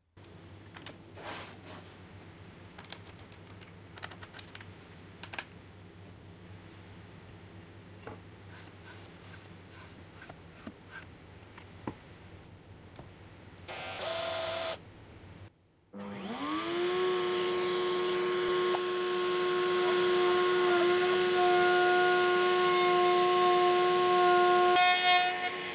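A table-mounted wood router starts about two-thirds of the way in, its whine rising quickly and settling to a steady high pitch, then runs under load as the bit cuts a circle into a hardwood board. Before it starts there is only a faint hum and scattered light clicks of handling.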